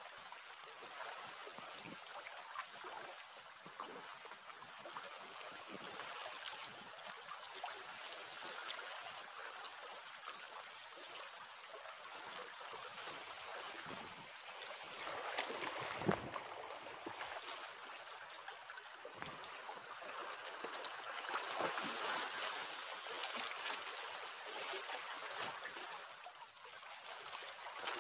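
Small waves lapping and washing over rocks at the water's edge, a steady gentle rushing that swells and eases, with one sharp knock a little past halfway.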